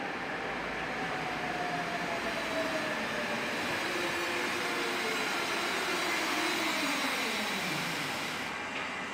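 Tatra T6A5 tram slowing to a stop: its electric traction drive whines in a pitch that falls steadily as the tram loses speed, then dies away near the end, over steady rolling noise on the rails.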